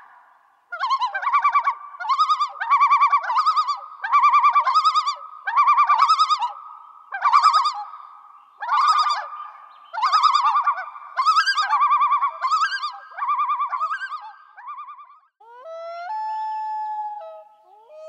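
Animal calls: a run of short, rapid warbling phrases, roughly one a second, then a steadier stepped call near the end.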